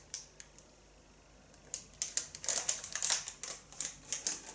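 Clear cellophane gift wrap crinkling and crackling as it is handled and pulled open: a few light crackles, a short pause, then a dense run of crinkling from about two seconds in.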